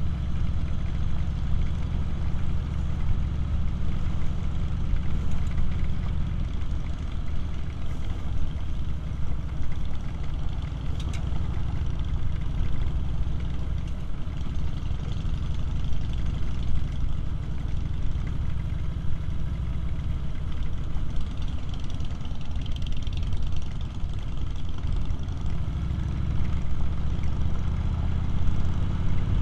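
Harley-Davidson V-twin motorcycle engine running steadily at low road speed, its note rising a little near the end as it picks up speed.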